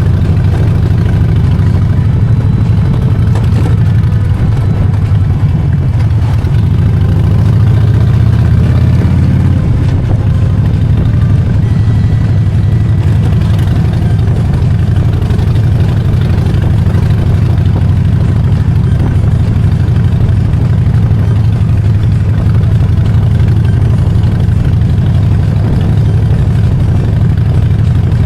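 Harley-Davidson Dyna Street Bob's V-twin engine idling steadily; its low note shifts slightly about nine seconds in.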